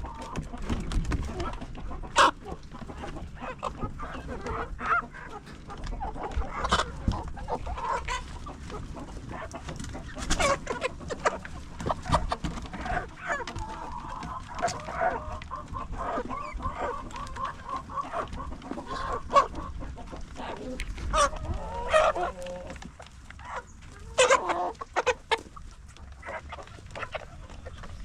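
A flock of chickens clucking and calling, with many short sharp clicks and knocks mixed in.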